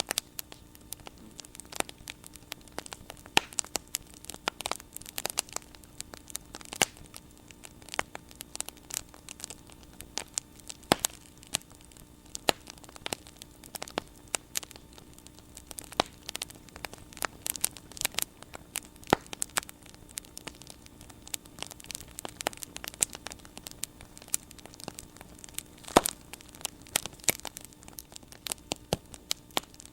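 Wood bonfire crackling, with irregular sharp pops, a few much louder than the rest, over a faint steady hum.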